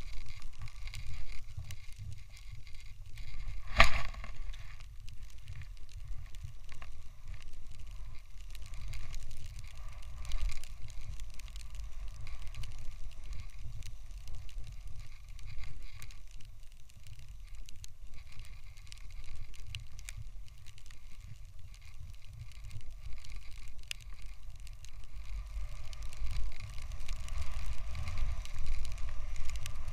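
Snowboard sliding through fresh powder snow, with wind rumbling on the microphone over a faint hiss of the board on snow, and one sharp knock about four seconds in.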